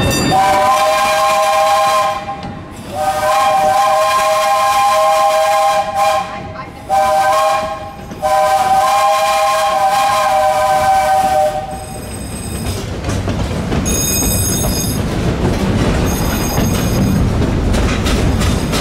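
Steam whistle of a 1922 Vulcan 2-4-0 tank locomotive blowing the grade-crossing signal: two long blasts, a short one and a final long one, several notes sounding together. The train then rolls on with the running noise of its wheels on the track.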